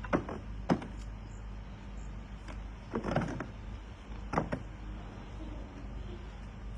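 A handful of short knocks and clatters, two early, a cluster about three seconds in and two more just after four seconds, over a steady low hum.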